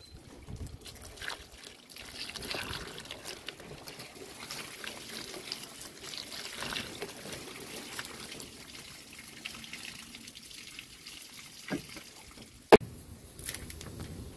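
Running water pouring into a plastic tub of vegetables, splashing and trickling as they are washed. A sharp knock sounds once near the end.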